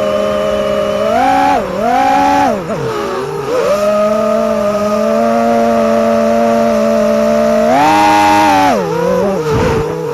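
FPV quadcopter motors whining, rising in pitch with a throttle punch about a second in, sweeping back down, holding a steady hover whine, then rising and falling again near the end.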